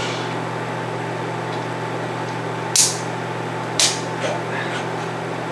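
Steady low hum of lab equipment with a faint fixed tone above it, broken twice by short, sharp hisses about a second apart in the middle.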